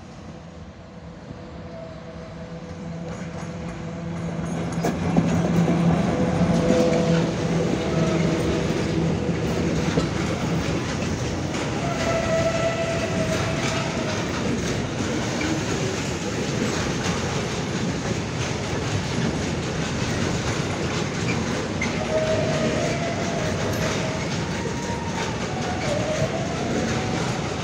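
A 3E/1 electric locomotive approaches at the head of a container freight train, its steady hum growing louder over the first few seconds. Then the loaded container wagons run past with continuous wheel-on-rail noise and a clickety-clack over the rail joints, with brief squeals twice.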